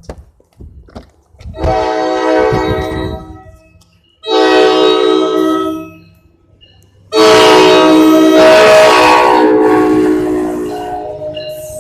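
Train's air horn sounding three loud blasts, each a chord of several steady tones; the third is held longest and fades out.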